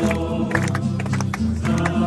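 A crowd singing a hymn together outdoors, with hands clapping along.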